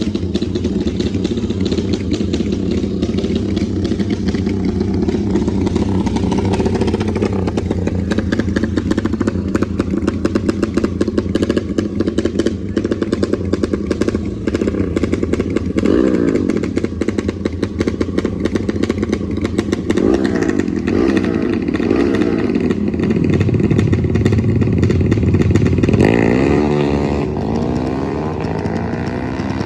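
Trail motorcycle engines running and revving, the pitch rising and falling repeatedly. Toward the end several rising and falling revs overlap, as more than one bike is heard at once.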